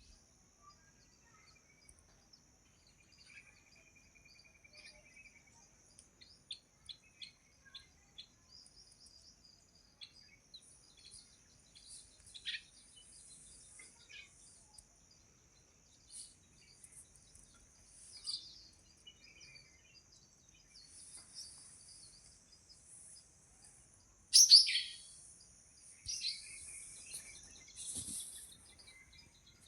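Several songbirds chirping and calling over a steady high-pitched hiss, with short whistles and a brief trill. A loud, sharp falling call a little after halfway through the last third is the loudest sound.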